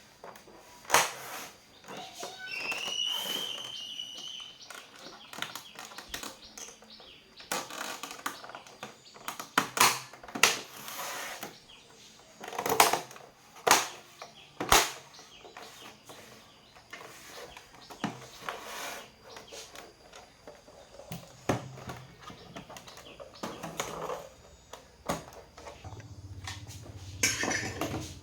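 Scattered clicks, taps and knocks of tools and small monitor parts being handled on a workbench during repair, with a brief high chirp about three seconds in. A low hum starts near the end.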